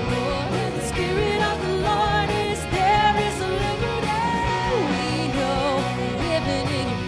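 Live rock-style worship band playing a song: electric guitar, bass guitar and drum kit, with a woman singing lead into a microphone.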